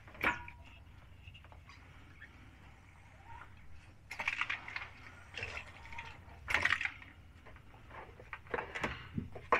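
Hand siphon pump being worked, pushing ATF+4 fluid from the bottle through its hose into a Jeep JL manual transmission. There are louder pump strokes about four seconds in, around six and a half seconds, and again near the end.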